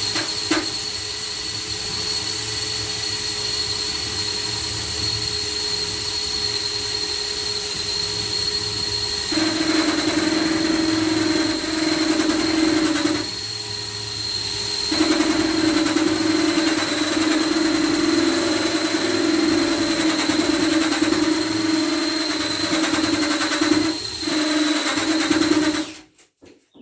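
Handheld electric polisher running, working mineral deposits and soap scum off shower glass, with a steady high whine. A louder low hum comes in about nine seconds in, drops out briefly around thirteen seconds, returns, and the motor cuts off near the end.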